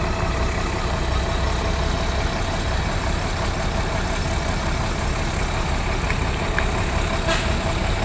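Diesel engine of a coach bus idling steadily, heard at its open rear engine bay while it is checked for loss of power. A couple of short sharp clicks come near the end.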